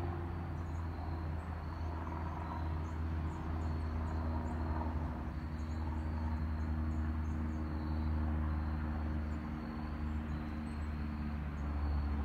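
An engine running steadily, a low hum with several steady tones, with faint insect buzzing high above it.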